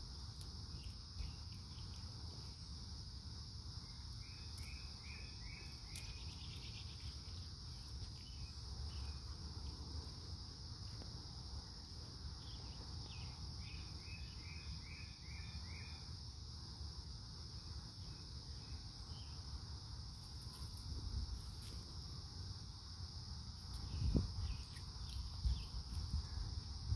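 Steady high-pitched insect chorus. A bird twice sings a short run of quick chirps over it, and a low rumble runs underneath, with a few louder low thumps near the end.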